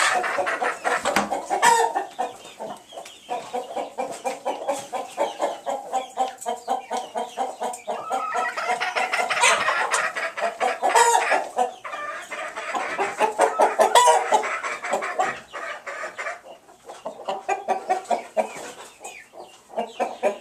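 A flock of chickens clucking continuously, many birds calling over one another in quick, overlapping notes.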